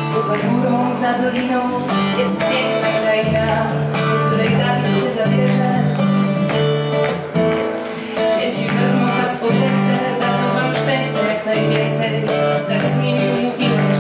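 Background music: an instrumental passage of a Polish-language song, with guitar carrying a steady rhythm.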